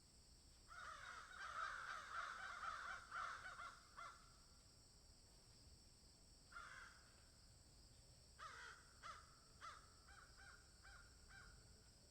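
Birds calling: a quick run of harsh calls lasting about three seconds, a single call a few seconds later, then a string of shorter calls about half a second apart that grow fainter.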